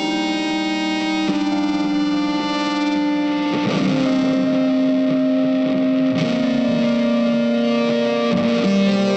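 Background music of slow, long-held notes that move to a new pitch every two to three seconds.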